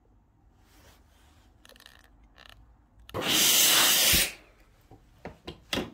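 Steam iron pressing iron-on knit interfacing onto dress fabric, giving a loud hiss of steam about a second long. A few short knocks follow near the end.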